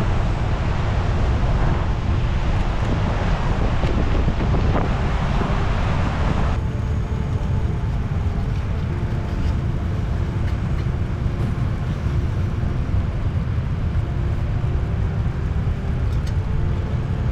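Strong wind buffeting the microphone over surf on a rocky shore: a steady heavy rumble with a broad hiss on top. The hiss drops away suddenly about six and a half seconds in, leaving the low rumble.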